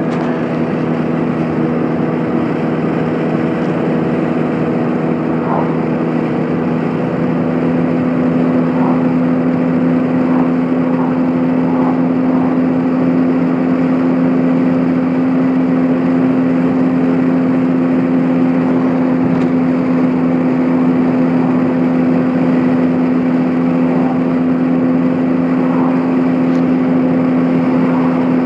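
Car driving at highway speed heard from inside the cabin: a steady drone of engine and tyres on the road, with the hum growing a little stronger about seven seconds in.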